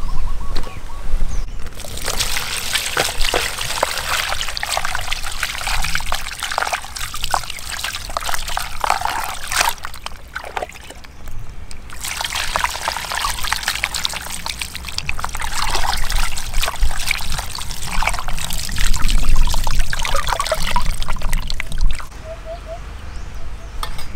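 Water poured from a plastic jug over a whole raw chicken being rinsed by hand, splashing down into a plastic basin. It comes in two long pours with a short pause between, and it stops near the end.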